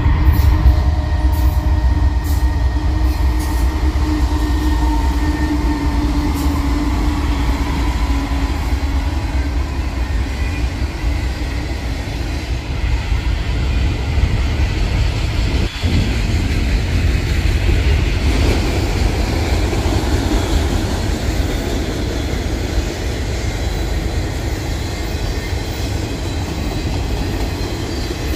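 Two diesel freight locomotives pass close by with a deep rumble and an engine drone that fades over the first several seconds. A string of multilevel autorack freight cars then rolls past with steady wheel-on-rail noise.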